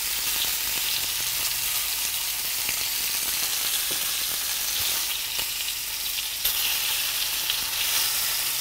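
Pieces of snapping turtle meat frying in oil in a skillet and an enamel roasting pan, a steady sizzle, with a few light clicks of metal tongs against the pans as the pieces are turned.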